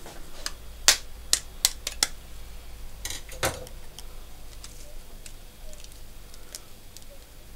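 An egg being tapped and cracked open: about six sharp clicks of the shell in the first two seconds, a louder knock about three and a half seconds in, then a few faint clicks.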